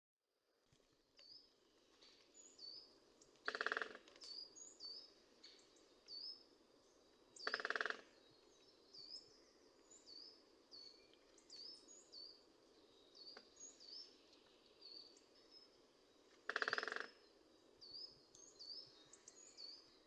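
Woodpecker drumming on wood in three short rapid rolls, about four seconds apart at first and then nine, against many short high chirps from small birds, repeated about once or twice a second.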